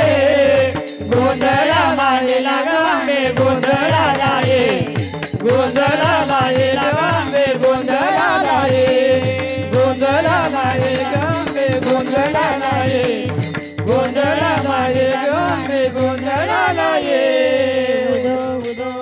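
A woman sings a Marathi devotional song to the goddess (Devi geet) into a microphone, her melody wavering on long held notes. Small brass hand cymbals keep a steady beat under the voice.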